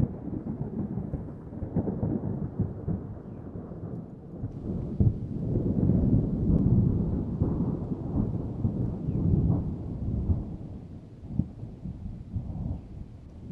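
Distant thunder rumbling in long rolls with scattered crackles. It swells about five seconds in and eases off near the end.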